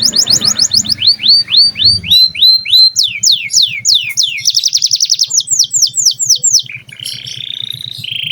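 Domestic canary singing loudly in full song: fast rolling trills and runs of repeated swooping notes, switching to a new phrase every second or so, and ending in a lower buzzing trill.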